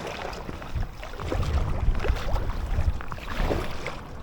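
Water splashing and lapping around an inflatable kayak on choppy water, with wind buffeting the microphone as a low rumble.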